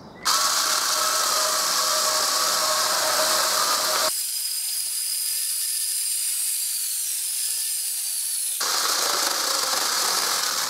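Cheap battery-powered one-handed mini chainsaw running under load, its electric motor whining steadily as the chain cuts through a 6-inch green log. The sound changes abruptly about four seconds in and again near nine seconds, where the sped-up cut is edited.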